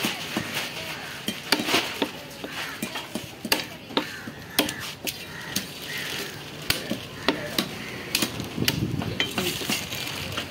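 Large knife chopping trevally into chunks on a wooden log chopping block: repeated sharp chops at irregular intervals, with the blade knocking into the wood.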